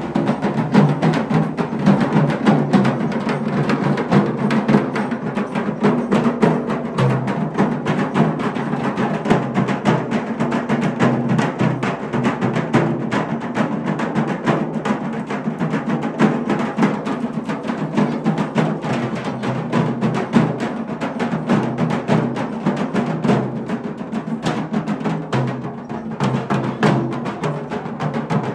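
Several large double-headed barrel drums played together in a fast, continuous rhythm.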